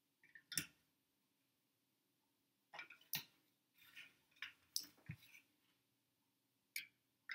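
Plastic clips clicking and tapping against each other and the glass bowl as they are pinched open and clipped onto its rim: about a dozen light, separate clicks with short pauses between them.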